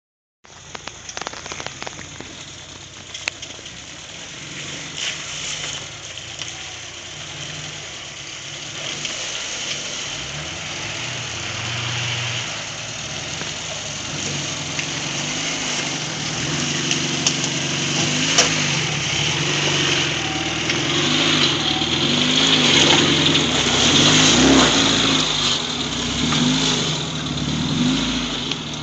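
Suzuki SJ413 off-roader's engine crawling through a water crossing and over rocks, getting louder as it comes closer. In the second half the revs rise and fall over and over as the driver works the throttle.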